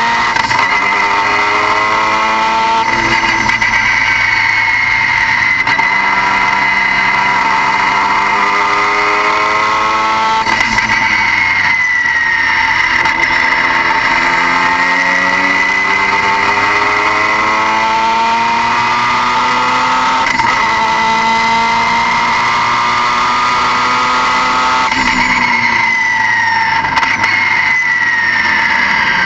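Car engine pulling hard, its pitch climbing steadily and then dropping sharply at gear changes, about four times. A steady high-pitched whine runs under it throughout.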